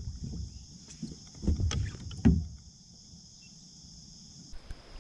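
Knocks and low rumbles of a landing net and a freshly caught bass being brought aboard a plastic kayak, with one sharp knock about two seconds in, then quieter. A steady high drone runs underneath and stops abruptly near the end.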